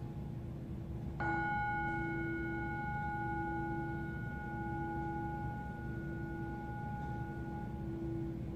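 Singing bowl struck once about a second in, ringing on with several clear tones that slowly fade. Underneath runs a lower ringing tone that swells and dips.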